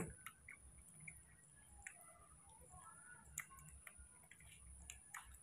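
Near silence with faint wet clicks and smacks of a young macaque sucking milk from a small feeding bottle, and a few faint short high chirps.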